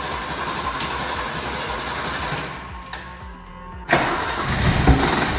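1965 Mercedes-Benz 220 SEb's mechanically fuel-injected inline-six being cranked over by the starter in a steady rhythmic churn, which stops about two and a half seconds in. About four seconds in a sudden, louder and rougher sound begins as the engine fires up after sitting for decades.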